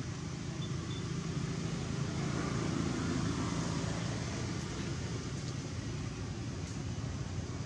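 Steady rumble of road traffic, swelling slightly a couple of seconds in as a vehicle passes.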